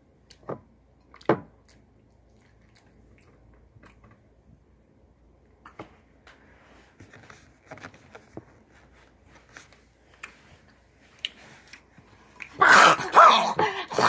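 Faint eating sounds: soft mouth and finger clicks as rice is picked up and chewed. Near the end a loud, rough growling sound starts and carries on, as rice is crammed into the mouth by the handful.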